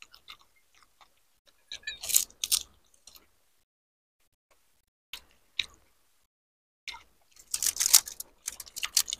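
Crisp hollow pani puri shells crunching and crackling as they are broken and eaten, with chewing. There are two loud bouts of crunching, about two seconds in and from about seven to eight seconds in, with small clicks between them.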